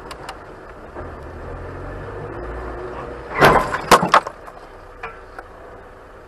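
Car collision heard from inside one of the cars. Low engine and road rumble, then about three and a half seconds in a quick cluster of loud knocks and cracks lasting under a second, followed by a couple of faint clicks.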